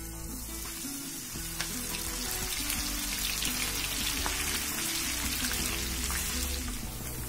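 Hot oil sizzling and crackling hard as flour-coated sweet corn kernels deep-fry in a frying pan. The sizzle grows louder over the first few seconds, then holds steady.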